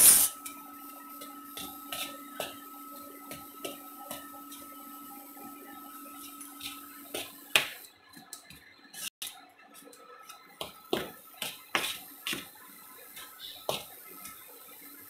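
Metal spoon stirring dry flour and spices in a plastic bowl: soft scraping with scattered light taps of the spoon against the bowl, and a few sharper knocks in the second half. A faint steady hum stops about halfway through.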